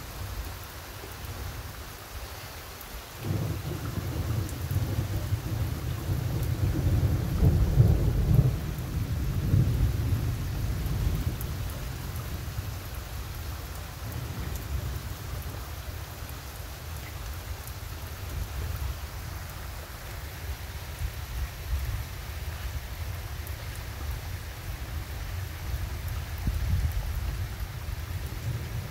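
Thunder rolling over steady rain: a long low rumble breaks in suddenly about three seconds in, is loudest a few seconds later, and slowly dies away. Another rumble begins near the end.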